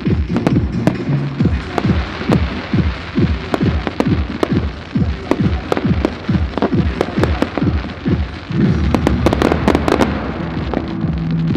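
Fireworks shells launching and bursting in quick succession over music with a regular low pounding beat. A dense spell of crackling bangs comes about nine seconds in.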